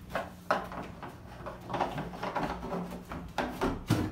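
Plastic knocks and clatter as a child handles a plastic toy slide's panels and climbing grips: several sharp knocks, the loudest near the end.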